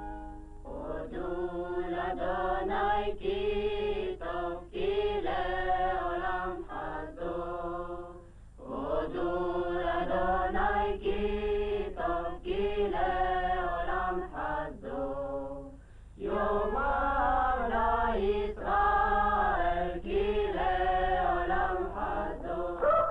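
A choir of voices singing a slow chant in three long phrases, with short breaks about eight and sixteen seconds in.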